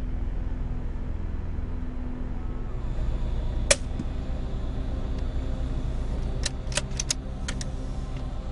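Vehicle engine idling with a steady low rumble. About a third of the way in comes a single sharp crack, typical of the moderated CZ 452 .22 rimfire rifle firing subsonic ammunition. A few seconds later there is a quick run of about six light metallic clicks.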